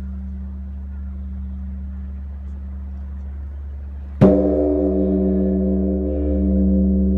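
Large Korean Buddhist bronze temple bell struck once, about four seconds in, after a steady low hum. The stroke rings on in several steady tones, its deep low note swelling and fading in slow pulses.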